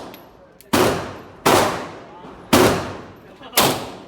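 Four gunshots from a firearm, fired about a second apart at an uneven pace. Each sharp crack trails off in a short echo.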